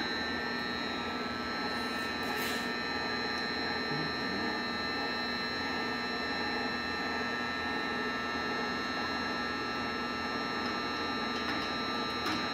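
Hardinge HLV-H-EM toolroom lathe running at a steady speed: an even machine hum with several constant whining tones. A light click about two and a half seconds in.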